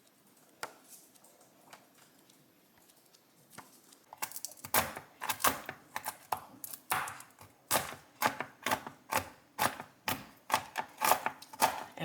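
Kitchen work: a run of sharp knocks, about two a second, starting about four seconds in after a few faint clicks.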